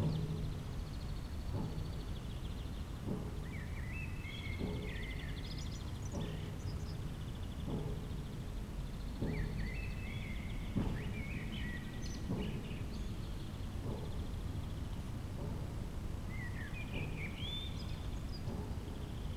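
Dull, even knocking about every one and a half seconds, each knock with a short low ring after it, over a steady low outdoor rumble. Birds sing short phrases in between.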